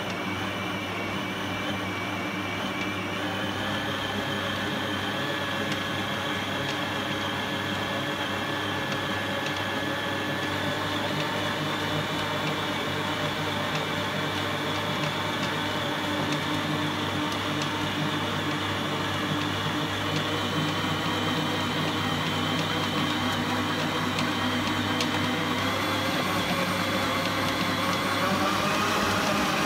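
Kenwood stand mixer's motor running steadily as it kneads brioche dough, a whine that steps up in pitch a few seconds in and again several seconds later. Near the end the speed is turned up and the whine rises and grows louder.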